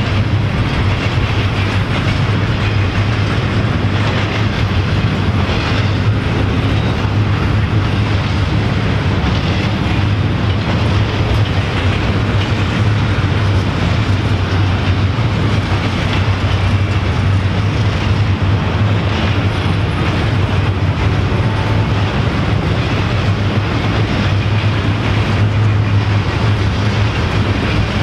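Double-stack intermodal container train rolling past, its well cars' wheels making a steady, loud rumble on the rails.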